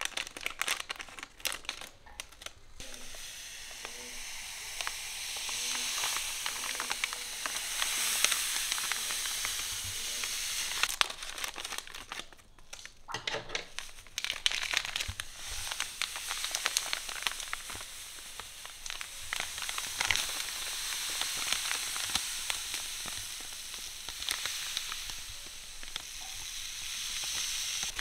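Table salt pouring from a plastic packet into a cast iron wok: a steady hiss of falling granules. It starts after a few seconds of crisp snips and packet crinkle as the packet is cut open. The hiss is broken about twelve seconds in by crinkling as the packets are handled.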